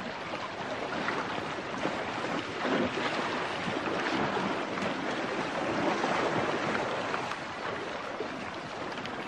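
Water splashing and churning as a herd of buffalo wade and push through a waterhole.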